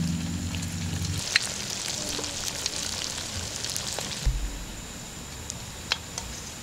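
Lumpia Shanghai spring rolls deep-frying in a wok of hot oil, sizzling steadily with a few sharp pops. The sizzle is louder for the first four seconds and then drops to a quieter sizzle. A low hum is heard at the start and stops about a second in.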